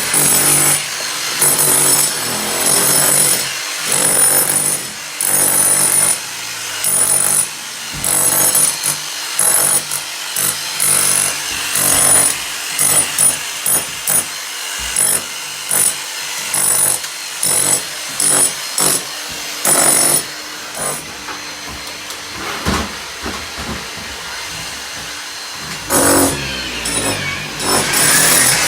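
Power tools running in repeated short bursts of about a second each, during house rewiring work.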